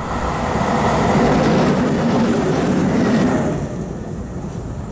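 Two coupled DSB class EG electric locomotives running light past at close range: wheels rumbling on the rails, loudest in the middle, then dying away about three and a half seconds in. A steady rumble of motorway traffic remains underneath.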